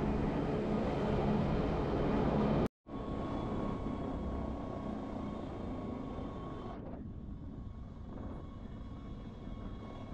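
Wengernalp Railway rack train running, a steady rumble heard from on board. It cuts out abruptly for a moment about three seconds in, then carries on, a little softer and with less hiss from about seven seconds.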